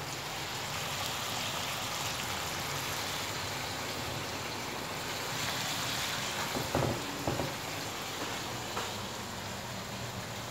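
Salmon fillets sizzling in olive oil in a frying pan, a steady hiss, with a few light knocks about two-thirds of the way through.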